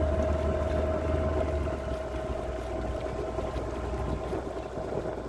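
Motorboat engine running steadily: a low hum with a steady higher tone over a wash of noise, the low hum easing slightly about two seconds in.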